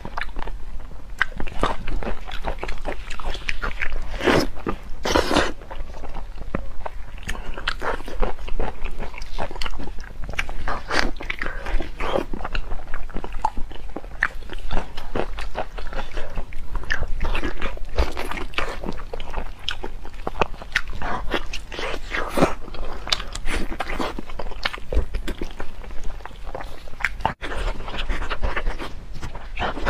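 Close-miked eating of spicy beef knee bone: quick, irregular biting, crunching and chewing of gristly cartilage and tendon, in footage sped up to double speed.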